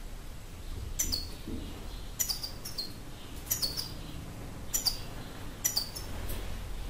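European goldfinch calling: short, high calls that each drop sharply in pitch, given singly or in quick twos and threes, about six times.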